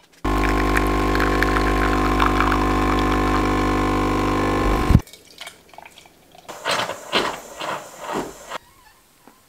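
De'Longhi espresso machine's pump humming steadily as a shot of espresso pours into the cup, cutting off suddenly about five seconds in. A few short, softer noises follow as the milk jug is handled at the steam wand.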